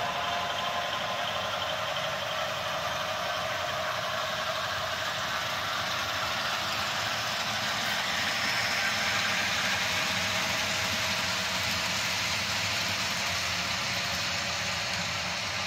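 HO scale model passenger trains running past on the layout: a steady rolling noise of metal wheels on the rails with the hum of the locomotive motors.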